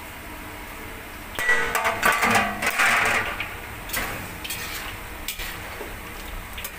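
Chopped tomatoes and green peppers scraped off a metal tray into a large steel pot of frying mince, with a loud clatter and scrape of metal on metal for about two seconds starting a second and a half in. After that comes a metal spoon knocking against the pot as the mixture is stirred, a few scattered knocks.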